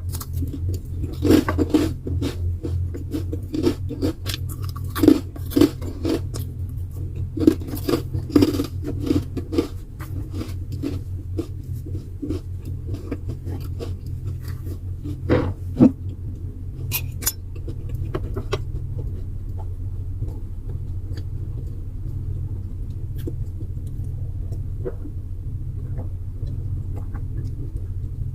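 Cutlery and dishes clinking and scraping during a meal, with many short knocks in the first half that thin out to a few near the end, over a steady low hum.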